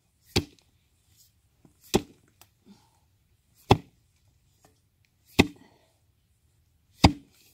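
Sledgehammer blows ramming dirt into a tire, five sharp thuds about every second and a half.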